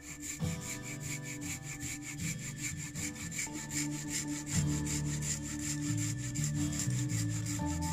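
Small hand saw cutting through the trunk of a thin standing tree in rapid, even strokes, over background music.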